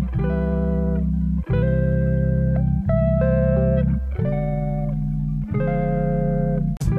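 Instrumental background music: sustained chords over a steady bass, changing about every second and a half.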